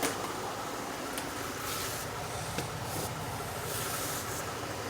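Steady background hiss, with a few faint clicks and three brief, soft rustles.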